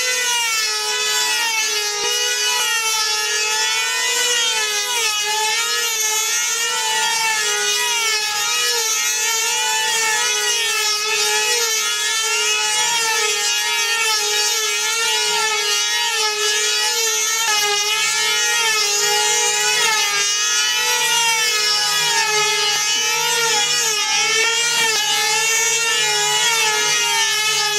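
High-pitched whine of a small two-stroke model engine on a control-line combat plane at full throttle, its pitch rising and falling in a steady wave as the plane circles on its lines.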